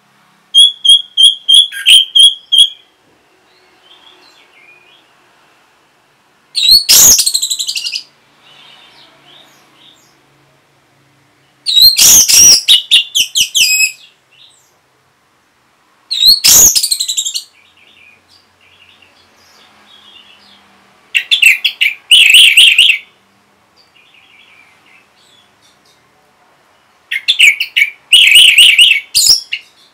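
Orange-headed thrush singing in six loud song phrases separated by pauses of a few seconds, with soft twittering between them. The first phrase is a quick run of about seven repeated high notes; the later ones are rich, varied warbles.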